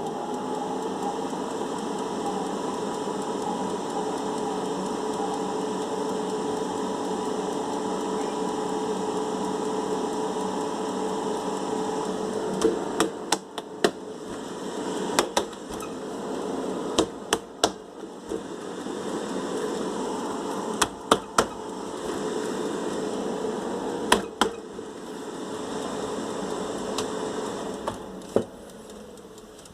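Air fryer running with a steady fan hum and a few held tones, without the loud noise it had before repair. From about halfway there is a series of sharp clicks and knocks from handling the appliance, and the running dies away near the end.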